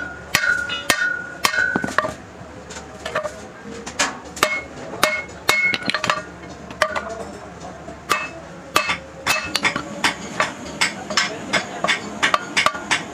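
Hammer blows on metal, each with a short ringing note, as a truck's driveshaft joint cross is worked on. The blows come irregularly at first, then settle into a steady run of about two to three a second near the end.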